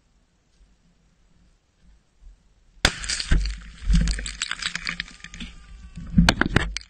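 Almost silent at first. About three seconds in comes a sudden loud crack, then a rush of crackling and snapping dry twigs and brush with rubbing on the helmet camera as the wearer drops to the ground. Two more sharp cracks come near the end.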